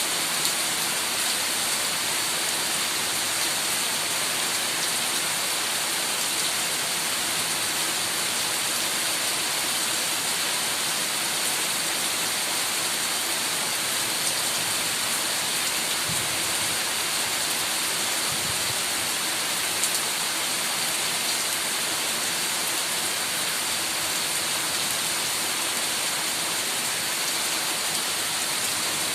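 Heavy rain pouring steadily, an even, dense hiss of falling drops.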